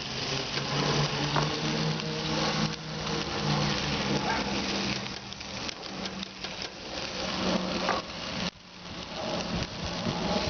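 Chicken pieces sizzling and crackling over a charcoal grill as sauce is brushed on, with a brief break about eight and a half seconds in.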